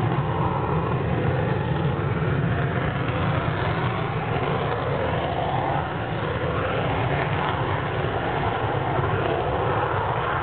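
Fighter jet engines running as the jets taxi on the runway: a steady, continuous rumble.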